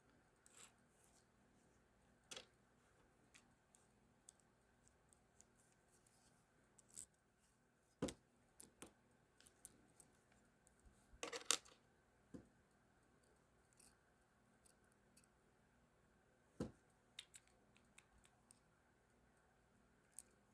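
Faint, scattered small clicks and taps from handling the tiny parts of a ratcheting screwdriver's ratchet mechanism during reassembly, with a short cluster of clicks about eleven seconds in.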